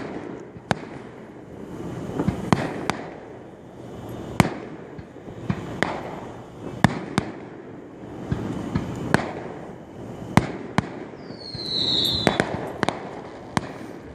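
Aerial fireworks display: shells bursting in a string of sharp bangs, about one a second at uneven spacing, over a continuous rumble. A short high whistle falls in pitch about three quarters of the way through.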